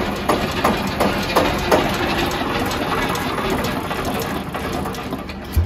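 Eicher 241 tractor's single-cylinder air-cooled diesel engine idling steadily, with one low thump near the end.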